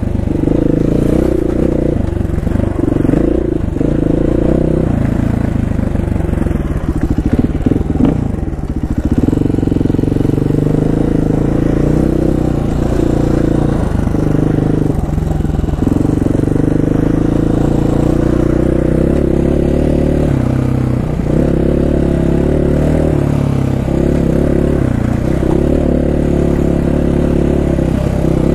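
KTM dirt bike engine running as the bike is ridden along a rough dirt track, its revs rising and falling with the throttle.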